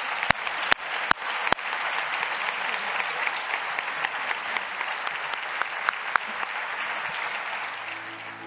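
Audience applauding. Four loud, close claps from a man clapping right at the podium microphones come in the first second and a half, and the applause fades slightly near the end.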